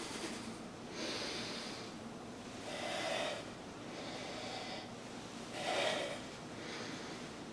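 A man breathing hard through his nose and mouth under the effort of a core exercise, about five loud breaths roughly one to two seconds apart.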